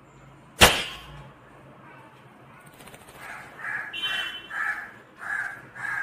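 A single sharp click about half a second in, then a rose-ringed parakeet's soft chattering murmurs, about five in a row, over the last three seconds.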